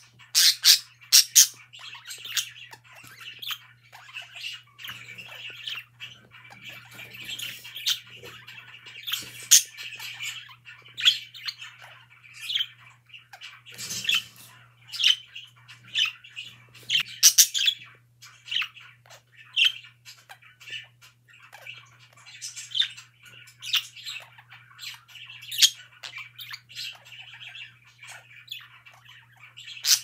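Budgerigars chattering and warbling, with frequent short, sharp chirps and squawks throughout, over a faint steady low hum.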